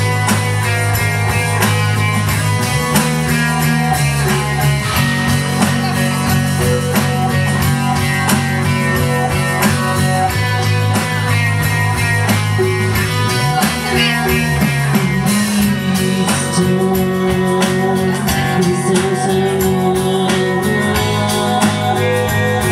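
Live band playing a downtempo chill-out song: electric guitar and bass over a drum kit, with the bass holding long notes that change every few seconds.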